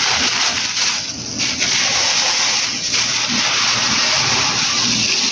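Plastic bag of granulated tapioca rustling and crinkling steadily as it is handled and opened.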